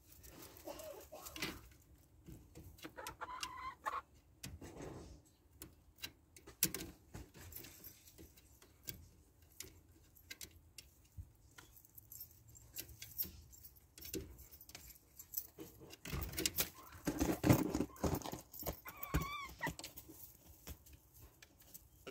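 Backyard hens clucking and calling, with a short pitched squawk near the end, over repeated clicks and metallic clattering, loudest about three-quarters of the way through.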